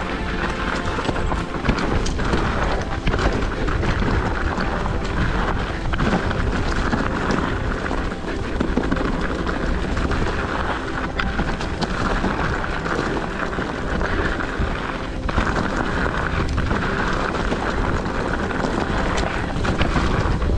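Mountain bike descending a rough, rutted downhill trail: a steady rush of wind and tyre noise on dirt, with the bike rattling and frequent sharp knocks from the bumps.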